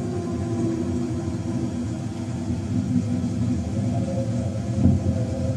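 Bass-heavy music playing through a loudspeaker: a continuous low rumble with a few held tones above it, the same audio signal the oscilloscope is tracing.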